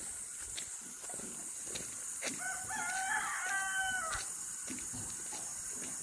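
A rooster crowing once, a single crow of nearly two seconds starting about two and a half seconds in.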